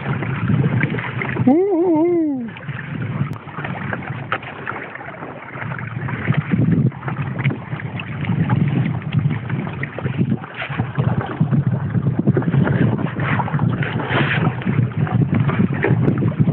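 Wind buffeting the microphone and water splashing and rushing along the hull of a trimaran kayak under sail, crackling and steady. About two seconds in, a short vocal sound rises and falls in pitch.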